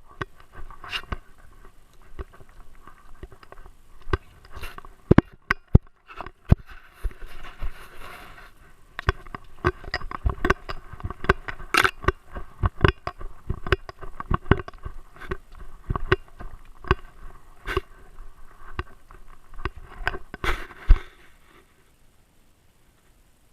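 Irregular close knocks, clicks and scraping on a GoPro worn by a dog, dense and uneven, with one sharp loudest knock near the end before they stop.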